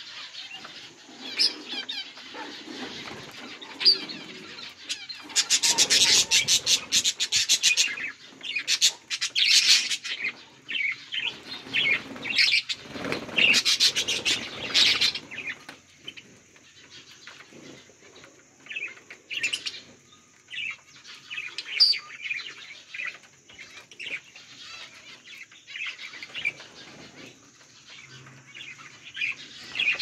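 A flock of budgerigars chirping, short high calls overlapping throughout, with several loud flurries of wing flaps in the first half.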